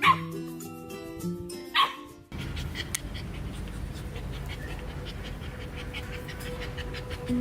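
Young golden retriever barking twice, a sharp call falling in pitch each time, about two seconds apart, over background music. Then the music cuts off abruptly and a steady low rumbling noise with faint ticks follows.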